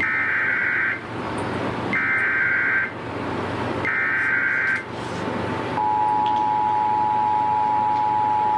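Three bursts of Emergency Alert System SAME header data, each a harsh digital warble lasting about a second, spaced a second apart. About six seconds in, the steady two-tone EAS attention signal begins and holds; together they open a new emergency alert.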